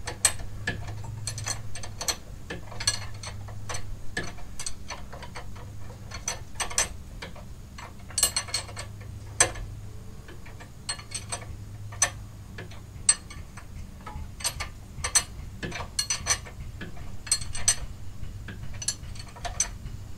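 Ratchet wrench clicking in short, irregular runs as a 19 mm castle nut is run down on its stud, with small metal clinks of the tool against the steering knuckle.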